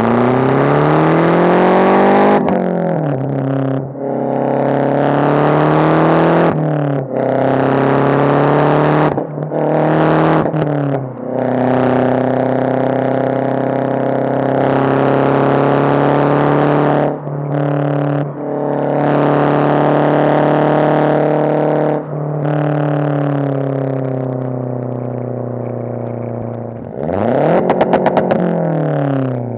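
Mazdaspeed 6's turbocharged 2.3-litre four-cylinder running loud through a catless downpipe and a resonator-only single-exit exhaust. It accelerates at first, then drops revs at about two seconds in and holds them steady, with several brief lifts off the throttle. Near the end it revs up and down sharply with a clattery edge.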